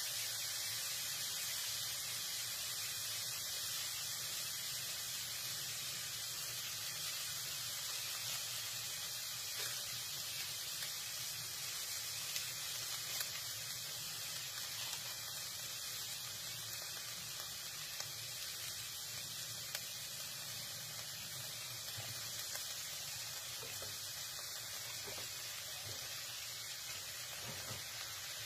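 Squid and green chilies sizzling steadily in a hot pan, with a few faint clicks along the way.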